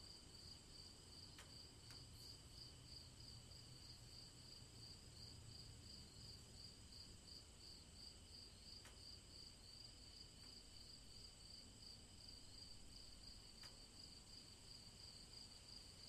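Faint chorus of insects trilling steadily in the evening: one fast pulsing trill at a high pitch over two steadier high tones, with a soft low background rumble.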